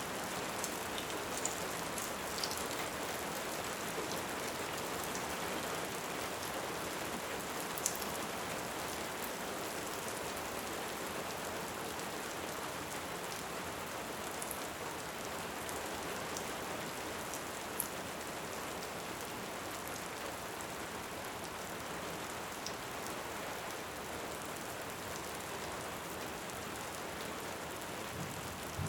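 Steady heavy rain, with a few sharp pops from a crackling wood fire scattered through it.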